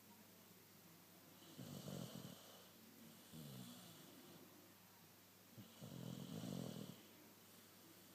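Sleeping dog snoring quietly: two snores about four seconds apart, each lasting about a second with a breathy hiss, and a fainter breath between them.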